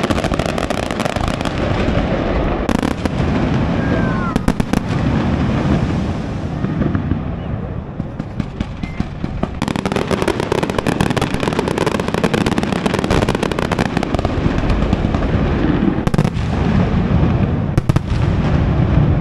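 Aerial fireworks display: a dense, continuous crackle of bursting shells over a low rumble, with clusters of sharp bangs several times and a brief whistle about four seconds in.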